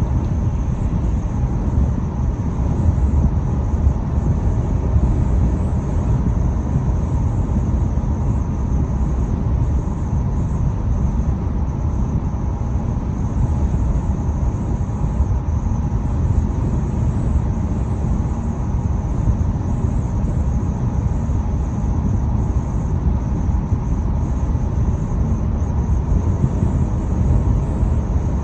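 Steady road and wind rumble inside a moving car, with a thin, steady whistle running over it. It is the wind whistle that appeared after auto body repairs, typical of air leaking through a panel or seal gap.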